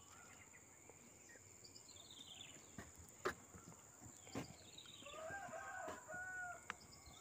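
Faint outdoor ambience: a rooster crows once for about a second and a half, about five seconds in. A few short descending bird calls and a few soft knocks are also heard.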